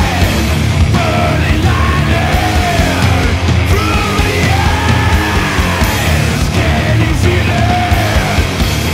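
Stoner metal recording: heavily distorted electric guitars, bass and drums playing loud and dense. A high line swoops up and fall in pitch in arcs about once a second over the riff.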